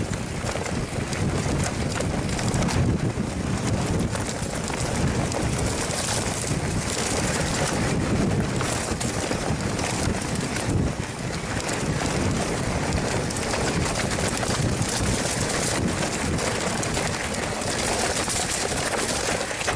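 Mountain bike riding on a dirt trail: a steady rush of wind on the microphone mixed with tyre rumble over dirt and stones.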